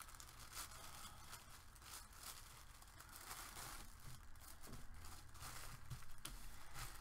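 Faint rustling and crinkling of a thin tissue-paper sewing pattern as hands press and smooth it down onto a glue-coated tag.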